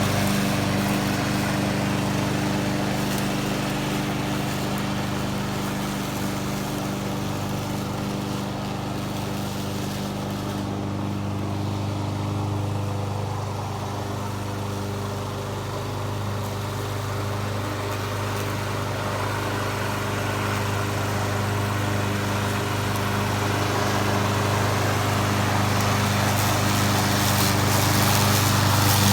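Honda HRX217 lawn mower's GCV200 single-cylinder four-stroke engine running steadily while mowing. It grows somewhat fainter through the middle and louder again toward the end.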